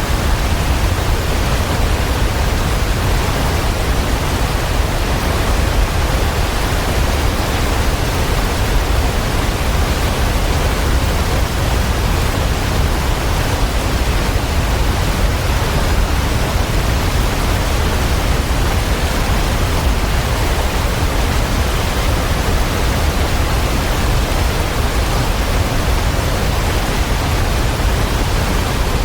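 Waterfall: a dense, steady rush of falling water with a deep low rumble, unchanging throughout.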